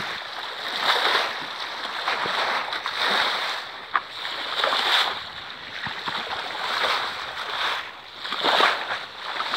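Sea water rushing and splashing along a sailing yacht's hull under way, swelling and fading about every two seconds, with a short click about four seconds in.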